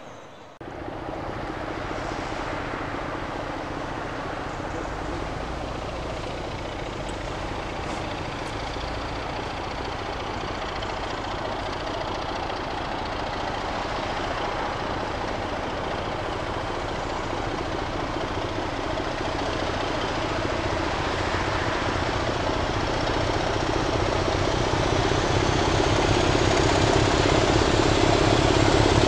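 Diesel locomotive approaching under power, its engine note growing steadily louder. In the last few seconds a faint high whine climbs in pitch.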